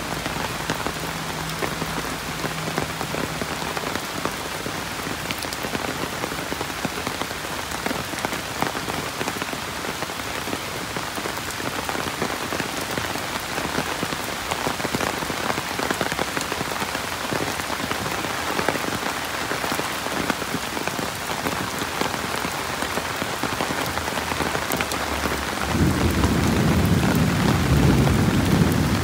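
Steady rain falling, an even dense patter and hiss. Near the end a low rumble of thunder rises and grows louder.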